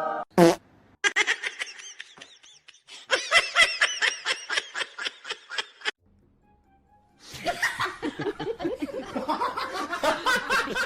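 Laughter in rapid, repeated bursts, in two stretches separated by a short pause about six seconds in.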